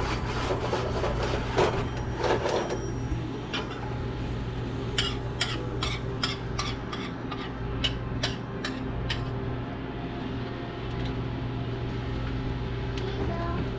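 A spoon scraping and then lightly clinking against a black cast-iron pot of simmering gravy, about a dozen sharp taps in the middle, over a steady low hum.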